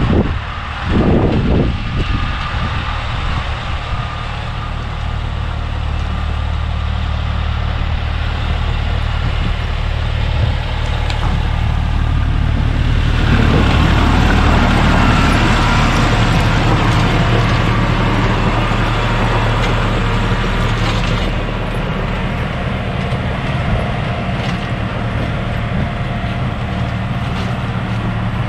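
Kubota L3301 tractor's three-cylinder diesel engine running steadily, growing louder about halfway through and easing off again.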